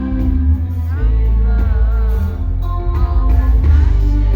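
Loud reggae music with a heavy bass line and sustained chords, and a singing voice between sung lines.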